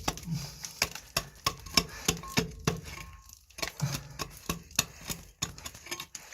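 A hand tool gently tapping and scraping at opal-bearing rock, in light, irregular clicks about two or three a second with a short pause about halfway through, as dirt is picked away from around an opal.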